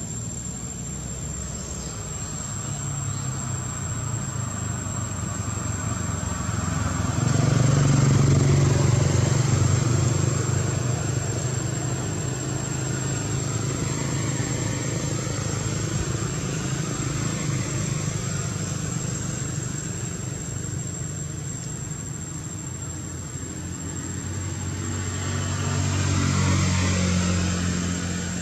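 Low engine rumble of motor vehicles, swelling louder about a quarter of the way in and again near the end.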